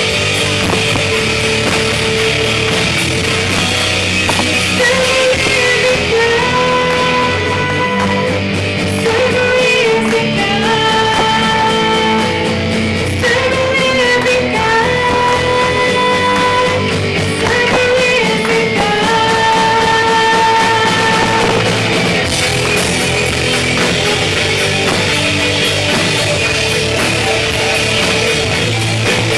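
Loud rock song with singing, long held notes through the middle over a steady band backing.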